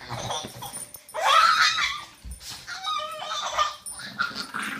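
A baby's excited squeals and laughter mixed with a small dog's whines as they tussle over a dog bed, with a long high squeal about a second in and another with a jumpy pitch around three seconds.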